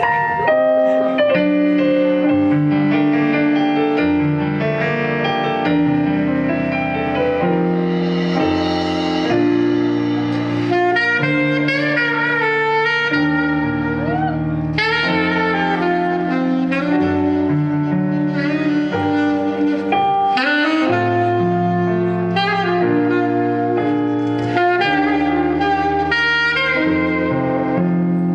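Live band playing an instrumental tune: a saxophone carries the melody over piano or keyboard chords and a bass line.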